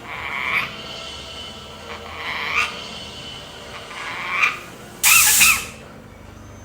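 Lorikeet mimicking a human cough: three raspy coughs about two seconds apart, each swelling up to a sharp end. About five seconds in comes a loud, shrill screech.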